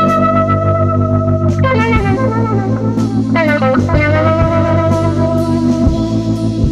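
Instrumental psychedelic rock: an electric guitar lead with bending, wavering notes over held bass notes and sparse drum hits.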